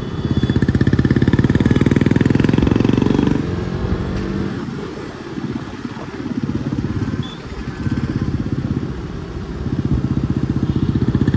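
Motorcycle engine running with a steady pulsing beat. It is loud for the first three seconds or so, quieter through the middle, and loud again near the end.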